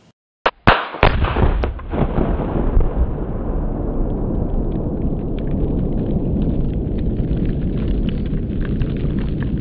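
A rifle shot sets off Tannerite under a box of non-dairy creamer: a few sharp bangs within the first second, the loudest the detonation. It is followed by a long low roar as the creamer dust cloud burns into a fireball, with crackling from about four seconds in.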